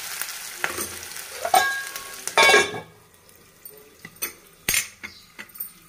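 Sliced onions and ginger-garlic paste sizzling in hot oil in a kadai while a metal spoon stirs and scrapes the pan. About three seconds in the sizzling stops abruptly, leaving only a few faint clicks and knocks.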